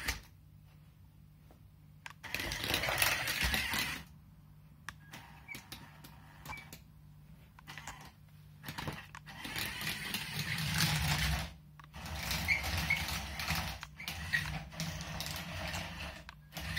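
Small homemade tracked robot driving: its two electric drive motors whirring with a low hum while the tracks clatter. It runs briefly a couple of seconds in, goes quieter with scattered clicks, then runs again for most of the second half.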